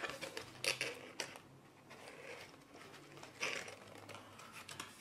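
Paper pop-up card being handled and folded shut: scattered soft crinkles and clicks of card stock, the loudest a little under a second, just over a second and about three and a half seconds in.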